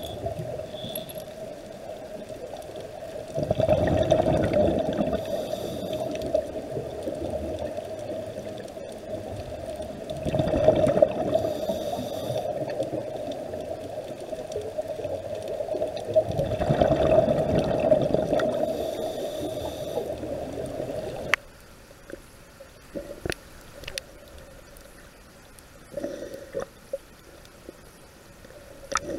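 Underwater sound of a scuba diver breathing through a regulator: a surge of exhaled bubbles about every six to seven seconds over a steady hum. Near the end the sound drops to a quieter underwater background with scattered small clicks.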